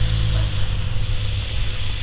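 A low, steady motor-vehicle engine hum over an even hiss of outdoor street noise. The engine's tones thin out about half a second in.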